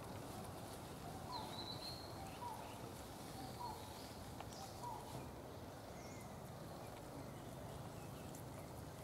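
Faint outdoor ambience: a steady low hiss with four short, faint chirps about a second apart in the first half, and a brief higher call near the start.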